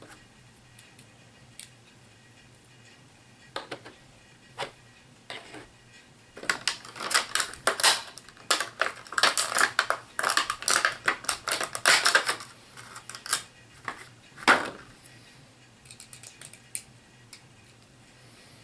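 Plastic clicking and crackling from handling HeroClix miniatures and their packaging. There are a few scattered clicks, then a dense run of clicks and crackles from about six to thirteen seconds in, and one sharper click shortly after.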